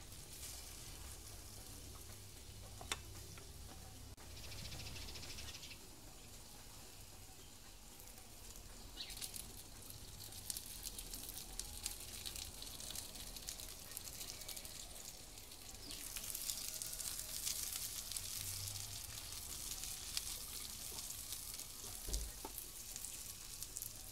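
Food sizzling and frying in a pan over a small wood-burning stove, stirred now and then with a utensil, with scattered sharp ticks. The sizzle grows louder about nine seconds in and louder again in the second half.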